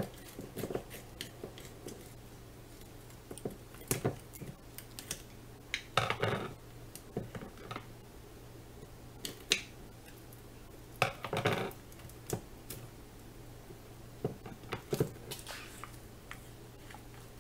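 Kitchen scissors snipping at a plastic hot dog package, with irregular clicks of the blades and louder bursts of plastic crinkling about six seconds in and again around eleven seconds. The cutting goes with difficulty, which the cook puts down to the hot dogs being kind of frozen.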